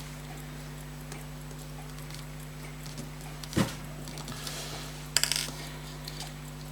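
Small metal parts of a fusee pocket watch being handled on the bench: a single sharp knock about halfway through, then a quick rattle of light clicks about five seconds in.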